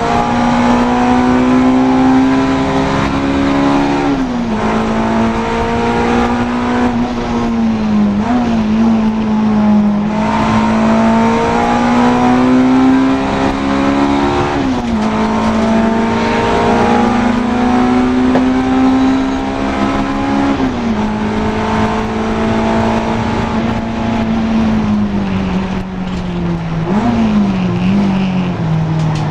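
Honda Integra DC2 race car engine running hard at high revs. The pitch climbs steadily and then breaks sharply about five times as the driver changes gear.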